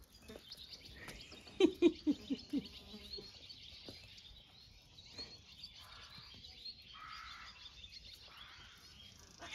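Wild birds chirping and singing in the background, with a quick run of four or five lower, louder calls about one and a half seconds in.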